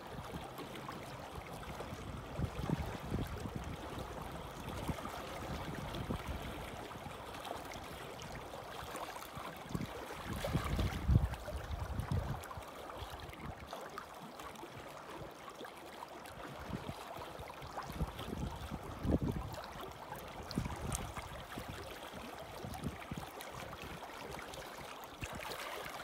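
Small waves lapping and splashing against shoreline rocks in the shallows, with wind rumbling on the microphone in gusts, the strongest about eleven seconds in.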